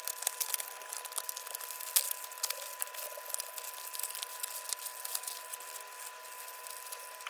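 Packaging being opened: plastic and paper crinkling and tearing, with many quick small crackles and clicks throughout. A thin steady tone runs underneath.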